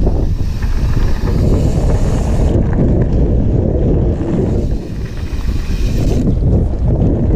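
Wind buffeting the microphone of an action camera on a mountain bike riding a dirt and gravel trail: a loud, steady low rumble, with a higher hiss that fades out about two and a half seconds in and comes back a little after four seconds.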